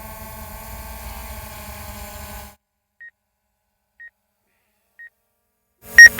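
A steady hum cuts off suddenly about two and a half seconds in. After dead silence come three short high beeps a second apart, then a much louder final beep, in the pattern of an electronic countdown.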